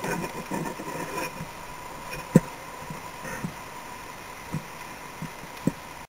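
Plastic sit-on-top kayak being paddled: a low wash of water against the hull broken by a few short knocks, the loudest about two and a half seconds in, over a faint steady whine.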